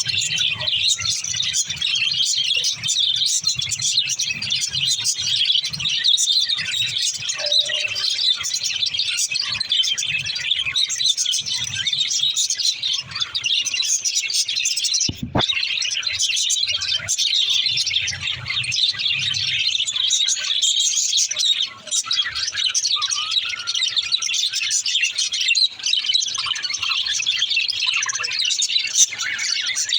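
Several pet budgerigars chattering and chirping together, a dense high twittering that never lets up, with one brief break about halfway through.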